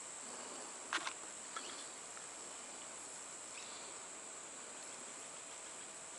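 Handling of a small plastic LED tester box: a sharp click about a second in and a lighter one half a second later, over a steady high-pitched hiss.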